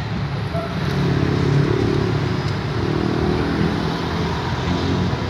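Bus engine running steadily, heard from inside the bus, with road traffic passing outside.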